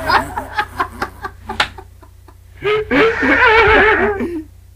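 Men laughing hard: a quick run of short, breathy laugh bursts, then after a brief pause a long, high, wavering laugh that stops near the end.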